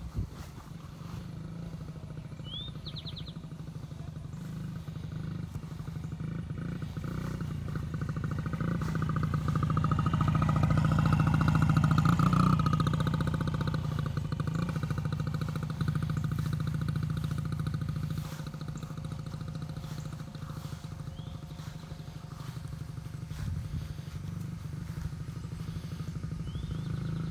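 Child's mini motorcycle engine running steadily as it is ridden across the grass. It grows louder to a peak about ten to thirteen seconds in as it passes close, then fades as it moves away.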